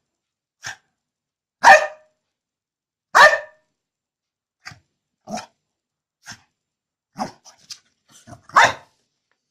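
French bulldog barking in short, separate barks, three of them loud: one about one and a half seconds in, another a second and a half later, and one near the end, with quieter short barks and noises in between.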